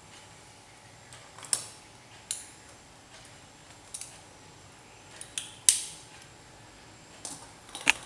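A series of sharp clicks and snaps, about seven at irregular intervals, the loudest a little past the middle.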